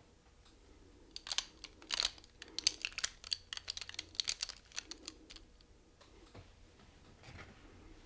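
Plastic eyeglass frames clicking and rattling against one another as another pair is opened and pushed on over the glasses already worn. A flurry of sharp clicks starts about a second in and thins out after about five seconds, leaving a couple of faint clicks near the end.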